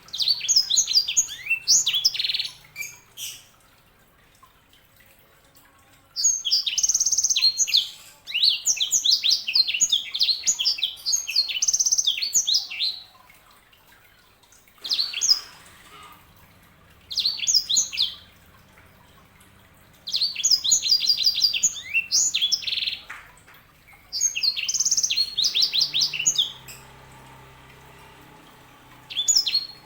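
Yellow-fronted canary (sanger) singing: repeated bursts of fast, high twittering chirps and trills, each lasting one to several seconds, with short pauses between them.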